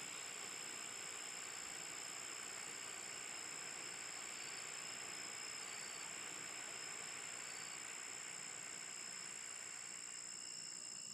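Steady high-pitched trilling of night insects, over the soft, even hiss of a burning red pyrotechnic flare. The hiss dies away near the end as the flare burns down.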